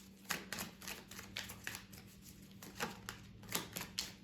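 Tarot cards being handled: a string of irregular soft clicks and card snaps, a dozen or so across the few seconds, as the cards are shuffled and laid out.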